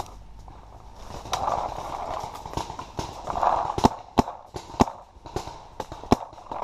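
Paintball markers firing: about a dozen irregular sharp pops, coming thicker in the second half.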